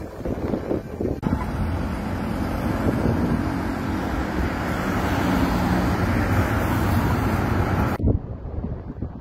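Electric tram passing along a street, a steady rumble of wheels on rails and running motors with a low hum. It starts abruptly about a second in and cuts off near the end, with wind gusting on the microphone either side.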